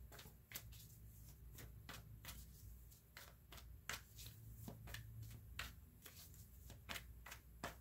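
Faint, short card flicks, about two a second, from a tarot deck being shuffled in the hand.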